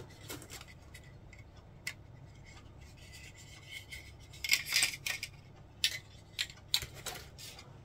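Hard plastic model-kit parts clicking and rubbing together as a fuselage section is pushed into place and test-fitted. There are scattered light clicks, a louder flurry of scraping clicks about halfway through and a few sharp clicks near the end.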